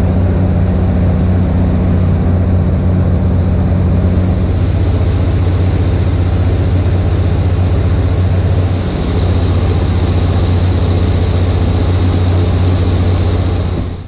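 Tractor diesel engine running steadily under load, with a hiss of shelled corn pouring into a wagon.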